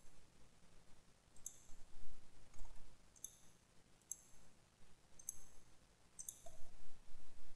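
Computer mouse button clicking about six times, roughly once a second, as line segments are picked one by one to trim them in a CAD drawing.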